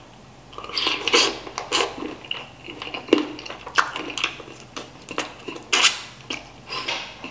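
Close-up eating sounds of a person slurping noodles and biting and sucking on chicken feet: a quick, irregular run of wet smacks and clicks from the mouth.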